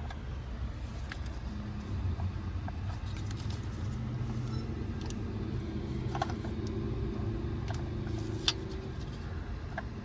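Low, steady rumble of a motor vehicle running nearby, swelling a little mid-way, with scattered light clicks and taps of small engine parts being handled; a sharper tap comes near the end.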